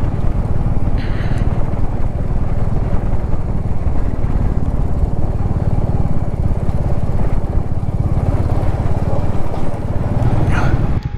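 Royal Enfield Classic 350's single-cylinder engine running steadily while the bike is ridden along a rough gravel dirt track.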